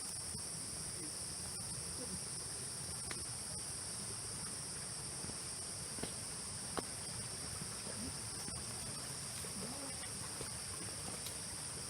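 Steady high-pitched insect chorus with two constant layers of buzzing, over a low background rumble, with a couple of faint clicks about halfway through.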